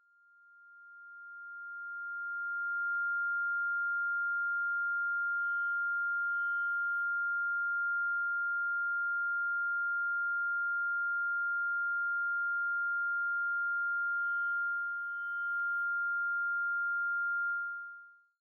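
A single steady high-pitched pure tone, an electronic ear-ringing sound effect. It swells in over the first three seconds, holds level, and drops away just before the end.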